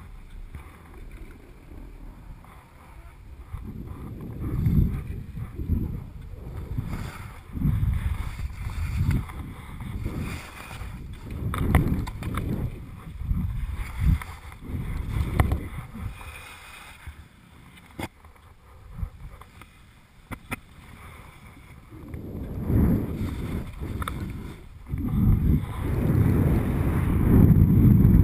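Skis hissing and scraping through snow in a run of turns, with wind rushing over the camera microphone; the noise swells and fades every second or two, eases off for a few seconds past the middle and grows loud again near the end.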